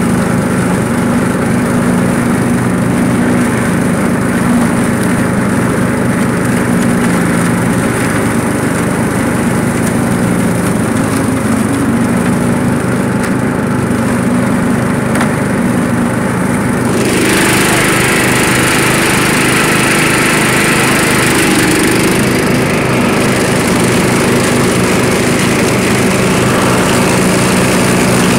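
Lawn mower engine running steadily while bagging leaves. About two-thirds of the way through, a louder hissing rush joins in over the engine.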